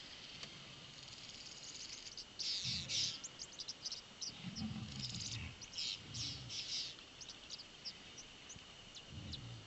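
African bush ambience: a steady high insect drone with birds chirping in short bursts, and a few short low sounds in between.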